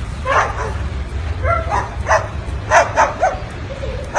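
A run of short, yapping bark-like calls, about seven in four seconds, over a steady low hum.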